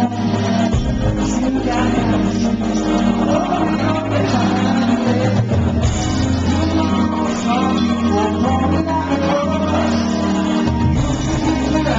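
Glam metal band playing live and loud: electric guitars, bass and drums, with a male lead singer singing into a microphone. The bass holds each note for about five seconds before changing.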